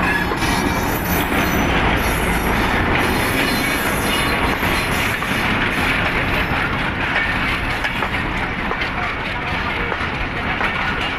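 Pakistan Railways diesel-electric locomotive running close past, then its passenger coaches rolling by, the wheels clattering over the rails with a thin high squeal now and then.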